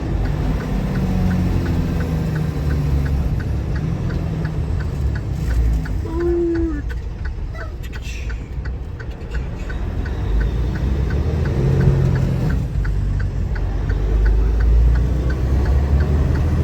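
Road noise inside a moving car: a steady low rumble of engine and tyres, with a light, regular ticking about three times a second.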